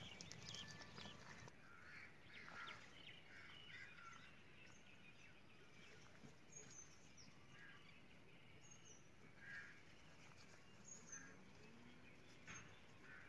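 Near silence, with a few faint bird chirps now and then.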